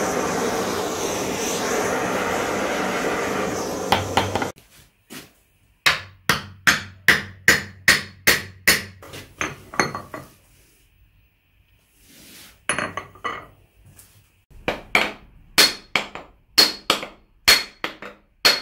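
Gas torch flame running steadily, cutting off about four and a half seconds in. Then a run of ringing metallic hammer blows, about two a second with a short break in the middle, as the head of a newly forged flatter (set hammer) is driven onto its wooden handle.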